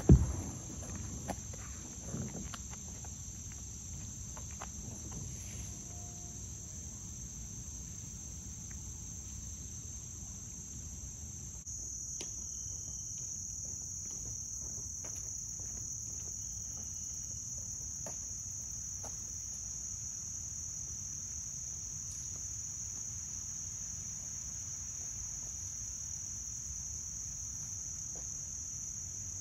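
Steady high-pitched insect chorus, with a loud thump right at the start and a few lighter knocks in the next couple of seconds. About twelve seconds in the insect sound steps up a little louder.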